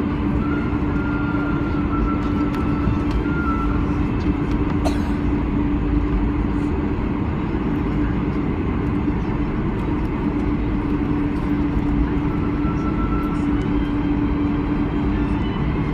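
Steady roar of a Boeing 747-400 airliner heard from inside the cabin, with a constant low hum running through a heavy rumble. A faint higher tone comes and goes twice, and there is a single click about five seconds in.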